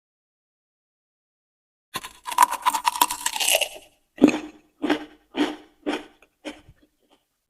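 A person bites into a raw vegetable with a crisp crunch about two seconds in, then chews it, about two crunchy chews a second.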